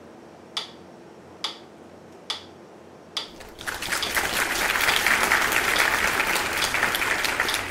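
A few sharp single clicks at a steady beat, a little more than one a second, then from about three seconds in, applause: rapid hand clapping that swells and eases slightly near the end.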